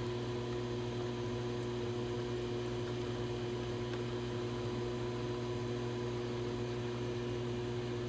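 Electric potter's wheel motor running at a steady speed: a constant hum made of several steady tones over a light hiss.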